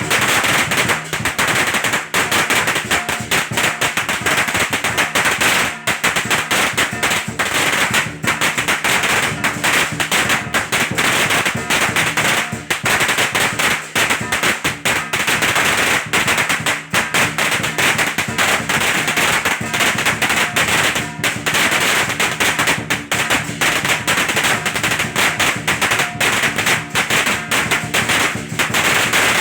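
A long string of firecrackers going off in a rapid, unbroken crackle, with music beneath it.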